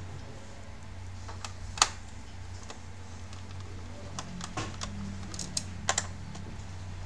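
Scattered small clicks and taps of a screwdriver and hands handling a laptop's plastic bottom case: one sharp click just under two seconds in, then a run of clicks from about four to six seconds in. A low steady hum underneath.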